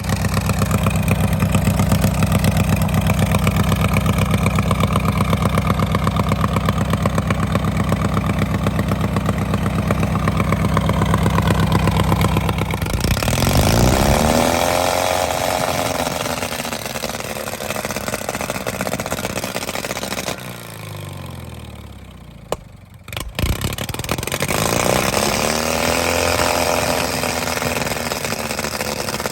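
Riding lawnmower engine running at a steady speed, then revving up and down several times. It slows and sinks almost to a stop with a sharp click, then picks back up and revs again.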